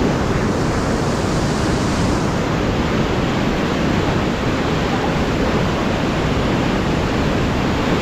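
Fast river water rushing and churning through a concrete weir, a loud steady rush with no breaks.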